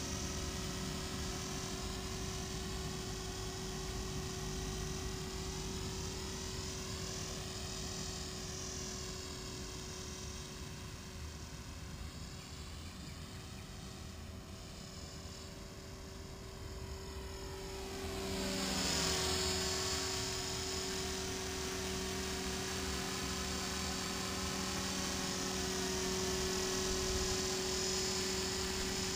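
E-flite Blade 300X electric RC helicopter in flight: a steady whine of its motor and rotor with a whoosh that sweeps up and down in pitch as it moves. It gets louder about two-thirds of the way through as it comes closer.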